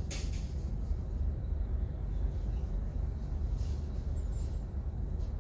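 Steady low rumble of a stationary car, heard from inside its cabin, with a short hiss at the very start and a faint thin high squeak about four seconds in.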